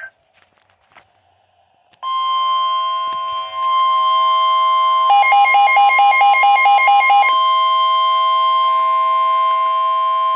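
Emergency alert attention tone: after about two seconds of near silence, a loud steady electronic alarm tone sounds, with a second tone pulsing rapidly over it for a couple of seconds midway. It is the signal that a new warning is about to be broadcast.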